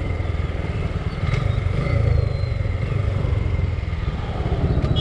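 Motorcycle running at road speed, a steady low engine drone heard from the rider's seat.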